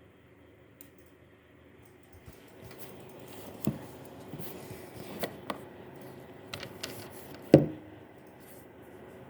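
Asus RTX 3070 OC graphics card running with a steady hum and a small grinding noise that grows louder about two seconds in. Several sharp clicks or knocks break through it, the loudest about three quarters of the way through.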